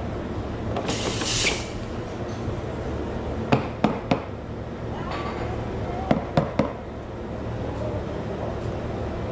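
Espresso-bar work sounds: a short hiss about a second in, then two quick clusters of sharp clinks and knocks, over a steady low hum.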